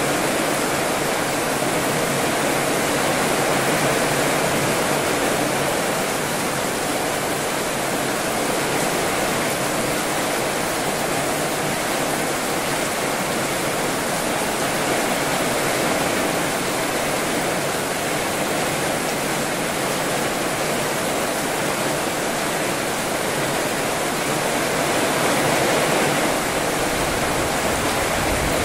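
Heavy rain falling steadily, with water pouring off the roof eaves onto the paving and plants.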